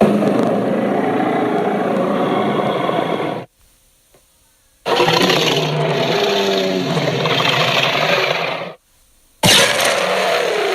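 Tyrannosaurus rex roar sound effect: three long roars, each about three to four seconds, separated by short silences. The third begins with a sharp attack near the end.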